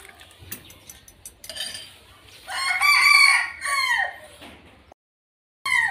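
A rooster crowing: one long call about two and a half seconds in that rises, holds and then falls away. A few light clicks come before it, and a short falling call follows near the end, just after the sound cuts out briefly.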